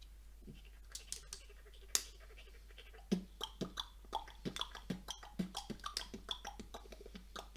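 Plastic Lego bricks clicking and knocking against each other as they are handled and pressed together. There are a few scattered clicks at first, then a quick, irregular run of them from about three seconds in.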